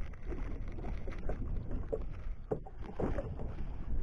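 A small boat under way at sea: wind buffeting the microphone and water against the hull over a steady low rumble, with a few short knocks.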